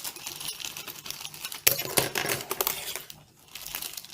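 Plastic packaging crinkling and rustling as a small tool kit is unwrapped, with a sharp click about a second and a half in.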